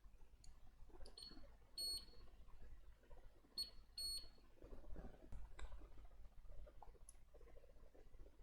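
Four short, high electronic beeps from the GVM H3 soldering station, in two pairs, among faint clicks and handling noise.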